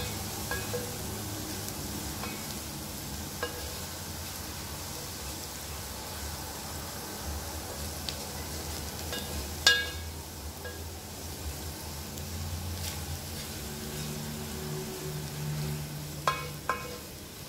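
Minced garlic sizzling in hot oil in a nonstick frying pan as it cooks toward golden brown, stirred with a wooden spoon. A few sharp knocks of the spoon against the pan, the loudest about ten seconds in and two close together near the end.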